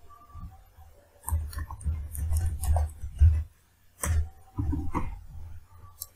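Irregular close-miked clicks, taps and low thuds with some rustling: handling noise at the desk, such as a mouse being clicked and scrolled.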